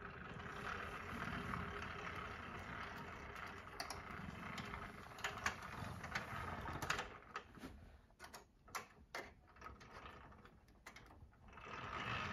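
Steering gear of a Meccano model car worked by hand: metal linkages, gears and bolted strips rattling and clicking as the steering wheel is turned back and forth. Sharp clicks come thickest in the middle, and the rattling eases off in the second half before picking up again at the end.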